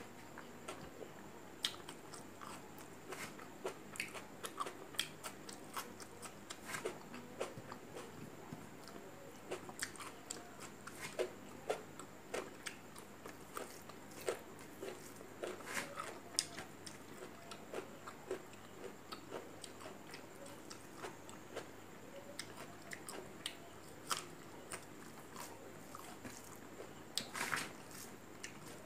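Close-miked chewing of rice and curry eaten by hand, with many short crunchy, smacking mouth clicks. A louder crunching bite comes near the end.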